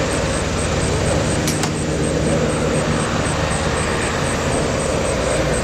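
Bell 206 turbine helicopter flying over, a steady drone of its turboshaft engine and rotor. A couple of faint clicks come about a second and a half in.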